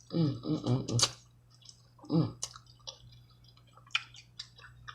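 Close-up eating sounds of saucy seafood boil: small wet clicks and smacks from the mouth and from fingers in the sauce. A short run of wordless voiced sounds of enjoyment comes in the first second and again about two seconds in.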